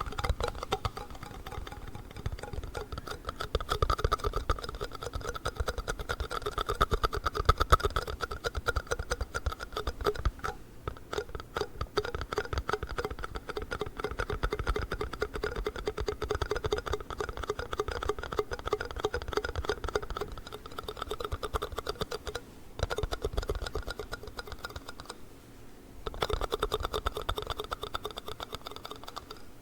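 Fast, dense tapping and scratching on plastic yogurt cups, with brief pauses twice near the end.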